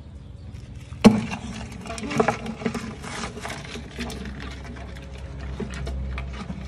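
A sharp splash and knock about a second in as a crab drops into a plastic bucket of water, followed by water sloshing and small clicks and knocks as a hand moves among the crabs in the bucket.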